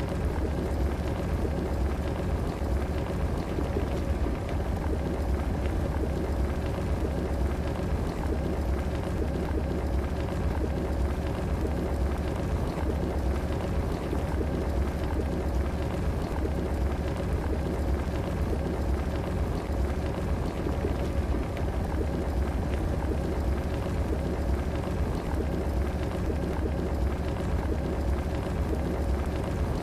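Electric kettle heating water at or near the boil: a steady, unbroken bubbling hiss with a deep rumble and a faint steady hum.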